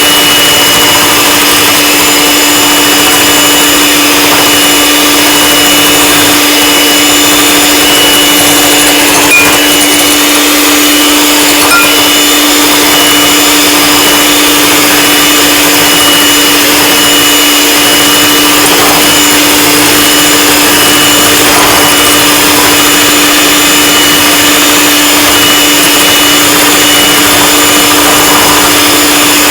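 Electric mixer running steadily, whipping egg whites and sugar toward stiff peaks for macarons, with a couple of faint knocks of the beaters against the bowl.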